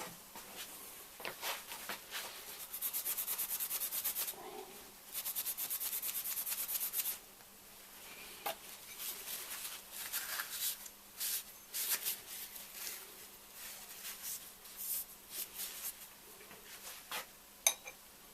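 Stainless steel pipe fittings being handled and fitted together: metal scraping and rubbing on metal, with light clicks and knocks. Two longer rasping scrapes come a few seconds in.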